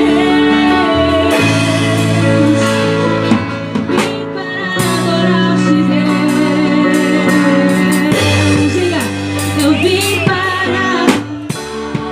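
Worship band music with a singer over long held chords that change every couple of seconds.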